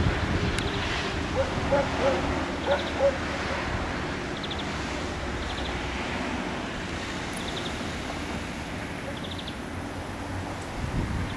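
Wind blowing on the microphone, a low rumble over a steady outdoor hiss, stronger in the first few seconds. A few short faint calls come through early on.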